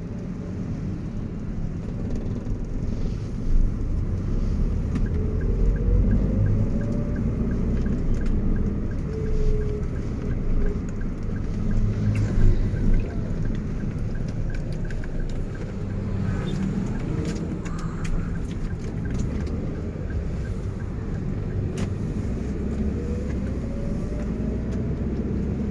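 Road and engine noise of a moving taxi heard from inside the cabin: a steady low rumble, with a rising whine as the car speeds up near the start and again near the end. A light regular ticking runs for several seconds in the first half.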